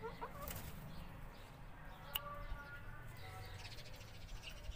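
Young Aseel chickens giving soft, short chirping calls, a few close together near the start and fainter ones later, over a steady low rumble. A single sharp click comes about two seconds in.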